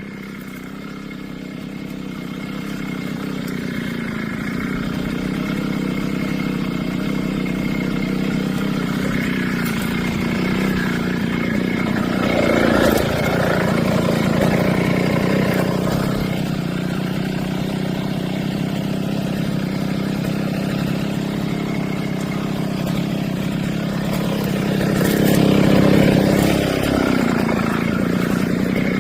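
Brush cutter engine running a steel S-shaped blade, speeding up over the first few seconds and surging louder twice, about halfway through and again near the end, as the blade is worked through mulberry branches.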